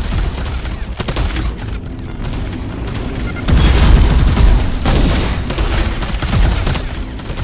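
Sci-fi energy-weapon fire: a barrage of gunfire-like shots with heavy booming blasts, growing loudest about three and a half seconds in.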